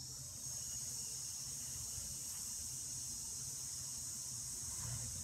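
A steady high-pitched hiss that switches on abruptly at the start and holds at an even level.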